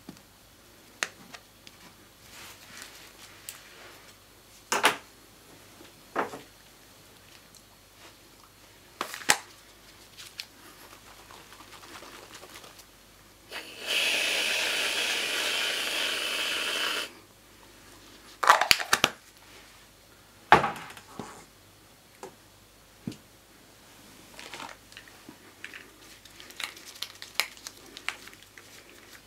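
Aerosol whipped-cream can spraying in one steady hiss of about three seconds, about halfway through. Scattered sharp taps and knocks before and after it, the loudest a cluster just after the hiss.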